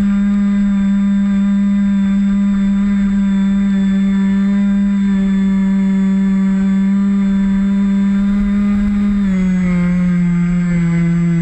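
Electric brushless motor and pusher propeller of a Bixler 1.1 RC plane, heard from a wing-mounted camera, running with a steady, loud hum. About nine seconds in, the pitch steps down slightly as the motor slows.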